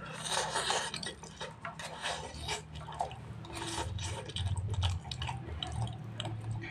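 A person slurping and chewing fried noodles: wet sucking slurps, with the longest one in the first second, then repeated short smacking mouth sounds.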